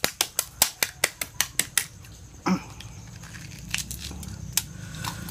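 A balut (boiled duck egg) shell being tapped to crack it, about ten quick taps at roughly five a second, then a single heavier knock. A few faint cracks follow as the broken shell is picked off by hand.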